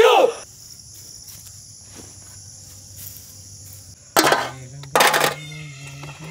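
Insects buzzing steadily in the background, with two short sharp sounds about four and five seconds in.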